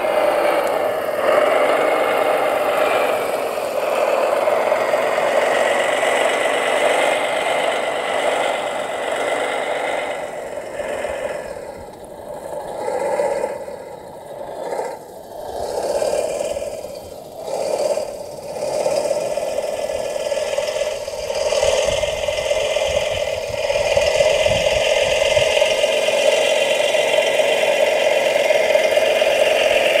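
Radio-controlled scale Volvo L250 wheel loader working, its motors and hydraulics giving a steady whine with a rattle. The sound sags and swells several times in the middle stretch as the machine moves and works its bucket, then holds steady and louder near the end.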